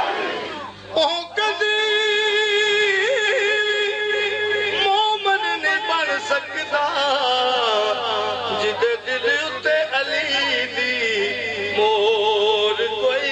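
A man singing long, drawn-out, wavering notes into a microphone over a public-address system: the melismatic opening of a Punjabi Sufi devotional song. It begins about a second in, as a crowd shout dies away.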